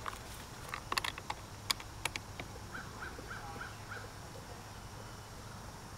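A few light metallic clicks and knocks as the Cassidy dovetail saddle's clamp is tightened down on the C14 telescope's dovetail bar, followed by a bird calling five quick, evenly spaced notes.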